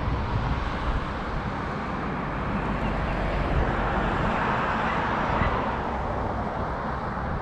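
Wind on the camera microphone and the rumble of a mountain bike rolling over dirt and grass, swelling a little louder in the middle.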